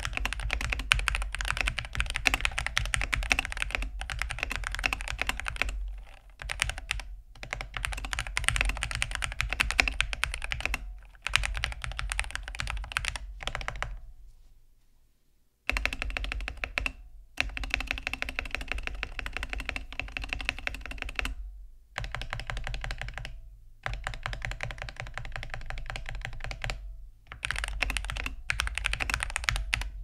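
Typing on a DrunkDeer A75 75% keyboard with linear-feeling Hall-effect magnetic switches, in a plastic case with a metal plate: fast, dense runs of key clacks in stretches of a few seconds, broken by short pauses. There is a longer near-silent break about halfway through.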